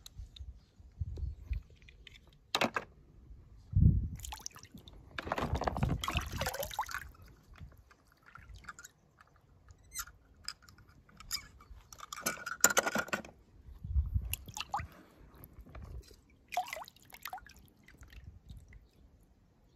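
Toy cars handled in water: a thump about four seconds in, then a few seconds of splashing, followed by scattered clicks and knocks of plastic toys.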